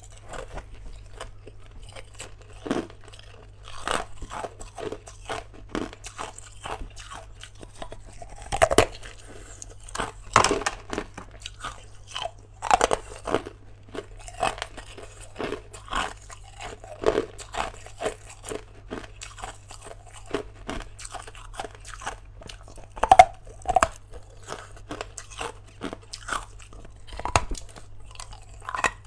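A person biting and chewing hard ice close to the microphone: irregular crisp crunches and cracks, some much louder than the rest, over a faint steady low hum.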